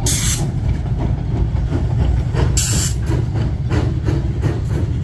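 Narrow-gauge train running with a steady low rumble, with two short hisses: one at the start and one about two and a half seconds in.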